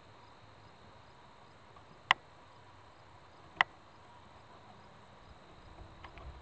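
Steady chorus of field insects trilling, with high steady tones, broken by two sharp clicks about a second and a half apart near the middle; some low rustling builds near the end.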